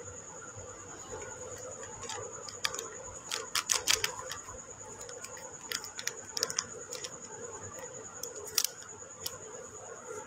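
Close handling noise: irregular clicks and crackles as a white packet is handled right next to the phone's microphone, in clusters about three and six seconds in and once more near the end, over a steady high whine.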